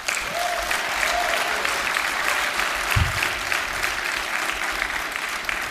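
Audience applauding steadily, a dense patter of many hands clapping that eases slightly near the end. A low thump sounds about three seconds in.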